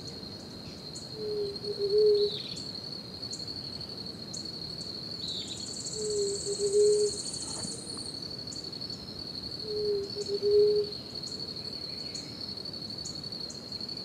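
Tropical forest ambience: an insect's steady, high-pitched trill runs on, with faint high chirps over it. A low hooting call, about a second long and in two parts, comes three times, about every four seconds.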